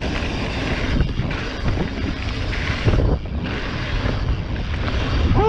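Wind buffeting the microphone during a mountain-bike ride: a steady rushing noise with a fluttering low rumble.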